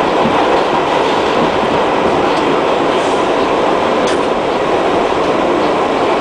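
Bombardier R62A subway car running through a tunnel, heard from inside the car: a loud, steady rumble of steel wheels on rail, with a few faint clicks over it.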